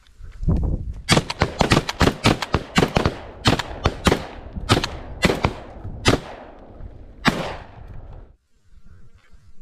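A rapid volley of shotgun fire at a flock of geese overhead: about twenty sharp shots in six seconds. The shots come thick and fast at first, then space out, and the last one lands about seven seconds in.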